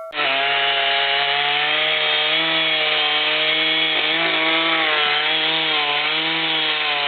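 Gasoline chainsaw running at high revs and cutting into wood, its pitch wavering slightly under load.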